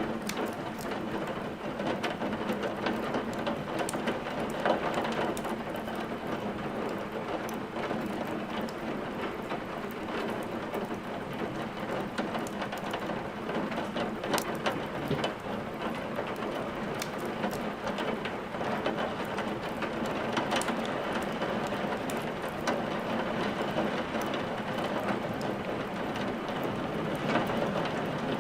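Steady rain together with a wood fire crackling in a fireplace, with sharp pops scattered throughout.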